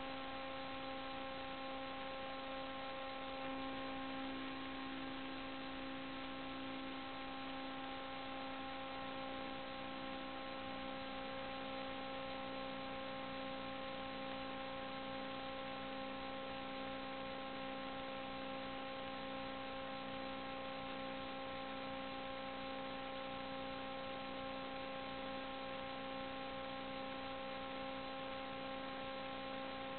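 Steady electrical hum: a few even, high tones held over a constant hiss, unchanging throughout.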